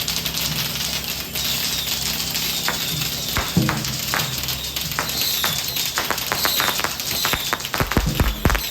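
Fireworks crackling and popping in scattered bursts, thickening near the end with a few deep bangs, over music with a steady low drone.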